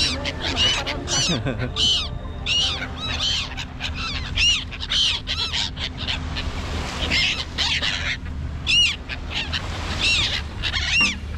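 A flock of gulls calling: short squawks that rise and fall in pitch, about two a second and often overlapping, with a brief lull partway through, over a steady low hum.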